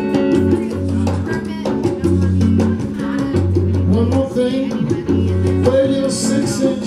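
Live band playing a steady Latin-style groove on electric guitar, electric bass and drums, with voices singing along.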